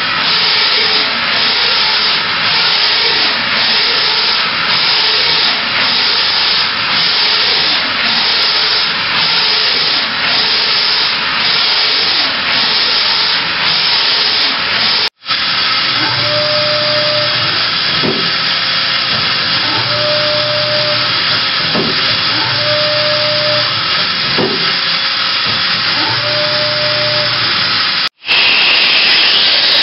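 Makino A81 horizontal machining center running, a loud steady hiss with a faint even pulse. After a brief break, a tone sounds four times, about a second each, with a low hum under it. After a second break near the end the machine runs louder.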